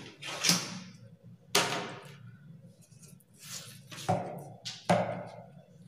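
Handling sounds as an L-square ruler is laid down and shifted on pattern paper: a handful of short taps and paper rustles, the sharpest about a second and a half in.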